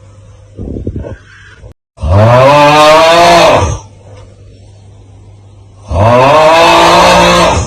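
The 'Aauuggh' meme sound: a man's loud, strained, drawn-out cry, heard twice, each lasting about two seconds, its pitch rising at the start and sagging at the end. A short, softer sound comes about half a second in.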